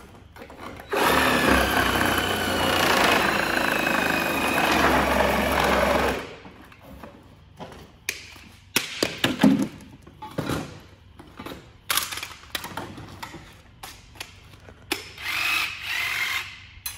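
A handheld cordless power tool runs steadily for about five seconds while working on a plastic bumper cover, its pitch wavering slightly under load. Scattered knocks and clatter follow.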